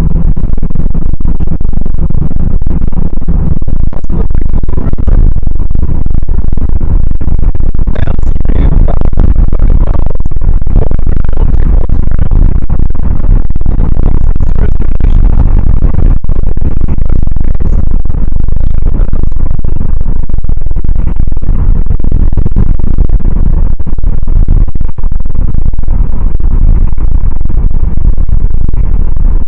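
Loud, distorted road and wind noise inside a moving car, heavy in the low end and steady throughout, drowning out everything else.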